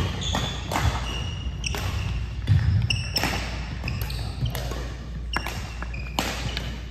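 Badminton play in a gymnasium: sharp cracks of rackets hitting a shuttlecock again and again, from this court and the ones beside it, mixed with short squeaks of sneakers on the gym floor.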